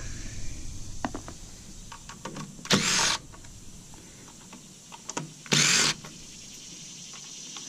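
Two short hissing sprays from an aerosol can of insect repellent, each about half a second long and about three seconds apart, with a few light clicks and taps between them.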